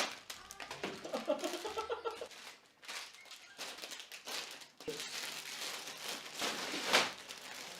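Plastic crinkling and rustling with scattered clicks, as bags and Lego parts are handled.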